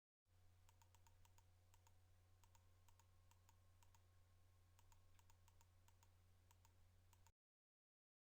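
Near silence: a faint low electrical hum with a scatter of soft, irregular clicks, which start about a quarter second in and cut off abruptly about a second before the end.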